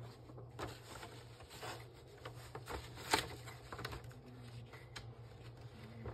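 A sheet of printer paper rustling and scraping as it is pushed by hand into the rear paper feed of an opened Epson L3150 inkjet printer. A few short, soft rustles, the loudest about three seconds in.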